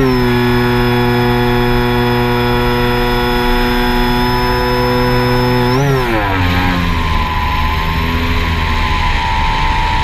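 Quadcopter drone motors and propellers with a loud, steady pitched whine. About six seconds in the pitch briefly rises, then falls away to a lower, wavering hum.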